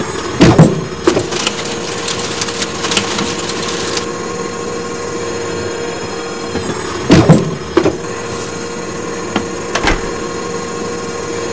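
Cartoon machine sound effects: a steady mechanical hum with clanks and thuds near the start, around seven seconds and around ten seconds, and a crackling hiss in the first few seconds.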